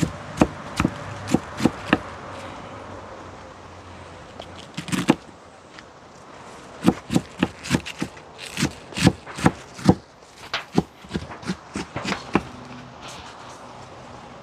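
Knife chopping cabbage: sharp chops about two a second, in three bouts with short pauses between.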